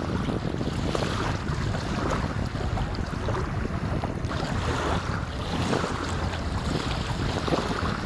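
Wind buffeting the microphone in a steady low rumble over the wash of choppy sea water, with irregular splashing surges.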